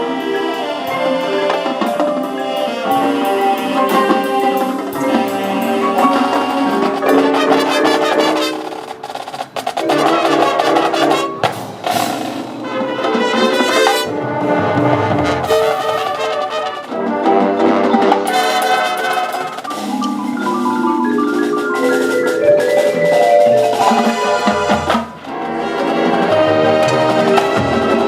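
High school marching band playing its competition field show, with mallet percussion (marimba, xylophone and glockenspiel) prominent over the brass. The music thins out briefly twice, about nine seconds in and again near the end.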